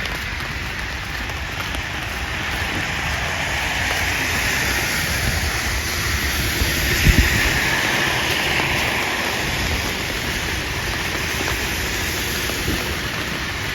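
Steady hiss of rain on a wet city street, with a car's tyres swishing past on the wet road, swelling and fading in the middle. A brief low thump about seven seconds in.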